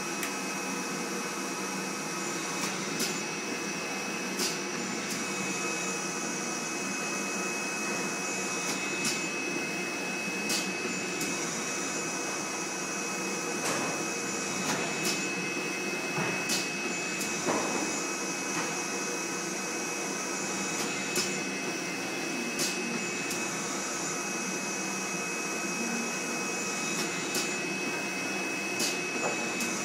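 Flat-bed screen printing machine running through its print cycles: a steady whir with a high whine that comes and goes. Sharp clicks come in pairs about a second and a half apart, repeating every five or six seconds as the print carriage shuttles.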